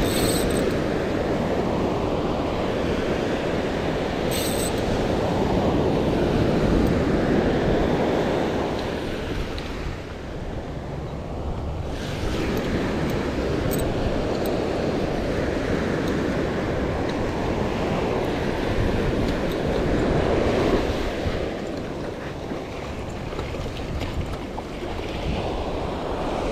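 Ocean surf breaking and washing up a sandy beach, swelling and easing every several seconds, with a few brief sharp clicks.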